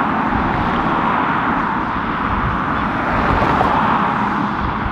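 Storm-force wind buffeting the microphone, a steady rushing with a gusting low rumble, over the distant jet noise of a twin-jet airliner on final approach.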